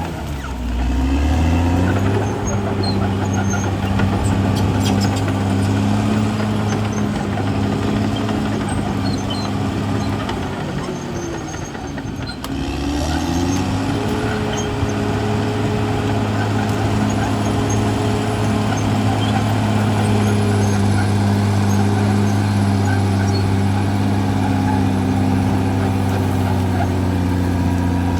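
Caterpillar D6R XL bulldozer's diesel engine working under load. It climbs in pitch over the first couple of seconds, eases off around ten to twelve seconds in, revs up again and holds steady, then drops near the end.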